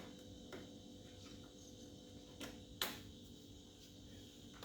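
Faint steady hum of a fridge compressor running during the gas refill, with a few light clicks and one sharper tap a little before three seconds from handling small parts.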